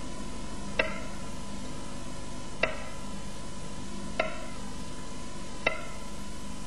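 Kitchen knife slicing a boiled potato into rounds, the blade knocking on the cutting board four times, about one knock every second and a half, over a steady background hum.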